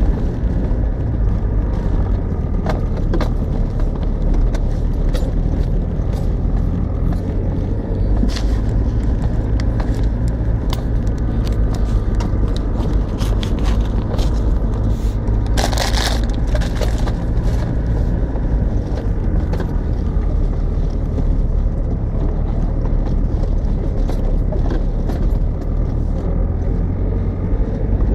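Range Rover Classic's 200Tdi four-cylinder turbodiesel engine running steadily while the vehicle crawls along a rough lane. Frequent clicks and knocks come from the body and suspension over the ruts, and there is a scrape about a second long around the middle.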